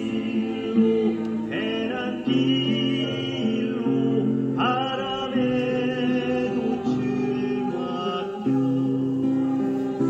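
Church choir singing with instrumental accompaniment, in long held chords that change every couple of seconds.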